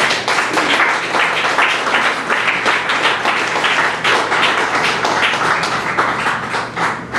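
Audience applauding, many hands clapping in a dense patter.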